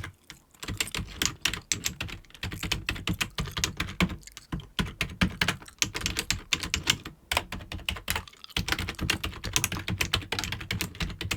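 Fast typing on a computer keyboard, runs of rapid key clicks broken by brief pauses.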